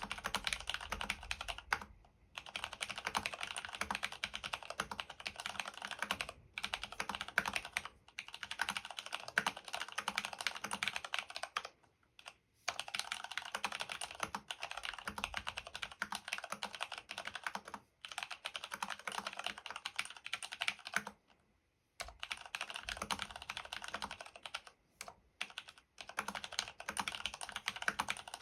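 DURGOD Fusion mechanical keyboard with Cherry MX Brown tactile switches, lubed with Super Lube and dampened with case foam, being typed on quickly. It is a steady stream of keystrokes broken by several short pauses, the longest about three-quarters of the way through.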